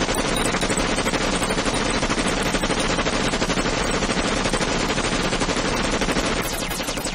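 Several machine guns firing at once in one long, unbroken stream of rapid shots, easing slightly near the end.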